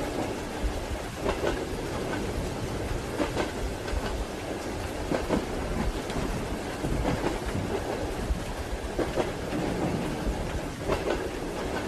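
Steady rain together with a moving train's low rumble, its wheels clacking over rail joints in a short clatter about every two seconds.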